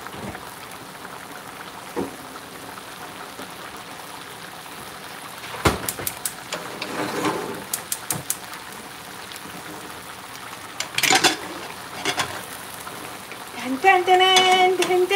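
Fish curry simmering in a frying pan, a steady bubbling hiss. A few metal clanks and knocks come as an aluminium idli steamer is set on the burner and its lid lifted off, the loudest about eleven seconds in. Near the end a woman's voice sings a few held notes.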